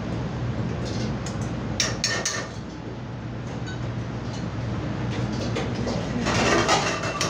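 Steady low hum of kitchen machinery with sharp metal clicks and clinks from a steel skewer handled against a steel bowl, about two seconds in, and a louder clattering, noisy stretch near the end.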